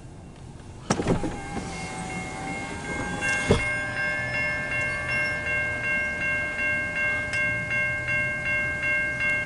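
Railroad grade-crossing bell ringing in rapid, even strokes, a little over two a second, starting about three seconds in: the crossing warning that a train is approaching. A sharp knock sounds about a second in, before the bell.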